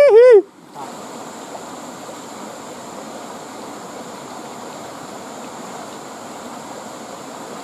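Steady rushing of a small river flowing over rocks. A drawn-out voice call cuts off in the first half-second.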